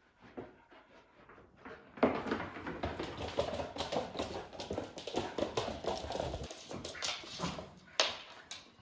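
Dogs playing, a German shepherd puppy and a rat terrier, with a dog's vocal noises; quiet at first, then busy and dense from about two seconds in, with a few sharp clicks.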